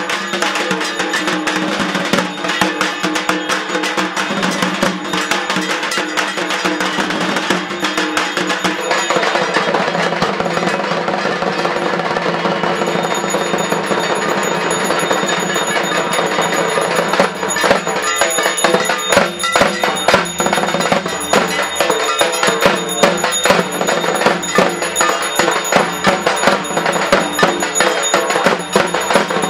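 Dhak drums beaten rapidly with sticks, in a dense, continuous rhythm. From just under halfway through, a brass hand bell rung for the aarti rings steadily over the drumming.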